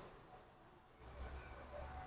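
Near silence, with a faint low hum coming in about a second in.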